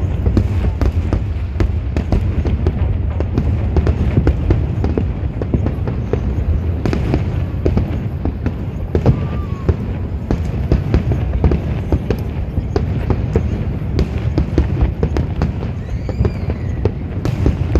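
Aerial fireworks display: a dense, irregular barrage of booms and sharp cracks from bursting shells over a continuous deep rumble.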